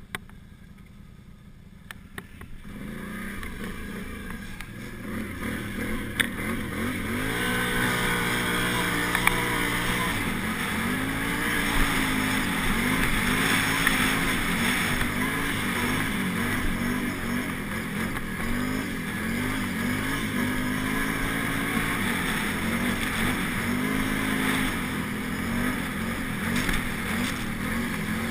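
Can-Am Renegade 800's V-twin engine heard on board while riding. It is faint for the first couple of seconds, then builds as the quad gets moving. From there it runs on under throttle, its pitch rising and falling as the rider speeds up and eases off.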